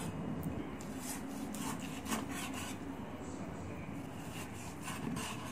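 A cleaver slicing through raw pork belly, its blade scraping and knocking on a wooden chopping board in a few irregular strokes.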